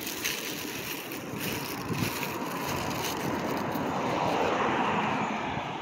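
A vehicle passing on a nearby road, its noise swelling through the second half, over a steady hiss of wind on the microphone.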